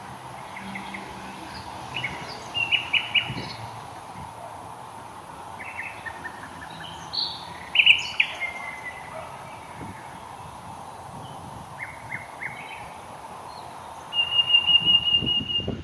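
Morning birdsong: several birds giving short chirps and trills over a steady background hiss, ending with a fast run of notes on one high pitch.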